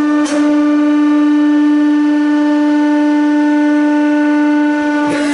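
Hydraulic press pump whining on one steady pitch while the ram moves down and presses onto a soft clay figure.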